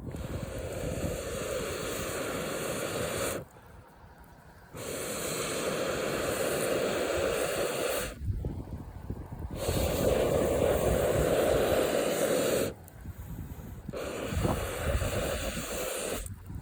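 Air blown hard into a campfire in four long blows of about three seconds each, with short pauses between them for breath.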